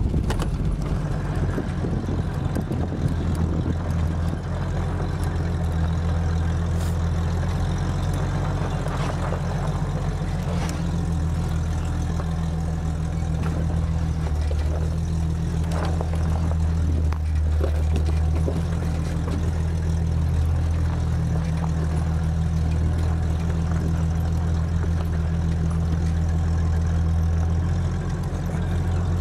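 Off-road vehicle's engine running steadily while driving slowly over a rocky dirt track: a low, even drone that eases off slightly near the end.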